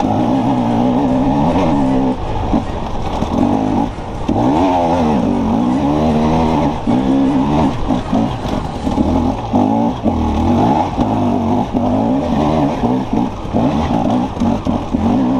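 Enduro dirt bike engine being ridden over a rough rocky trail, revving up and down every second or two as the throttle opens and closes.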